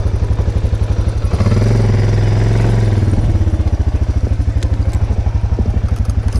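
Motorcycle engine idling with an even pulsing beat, rising briefly in pitch and level about a second and a half in, then settling back to idle.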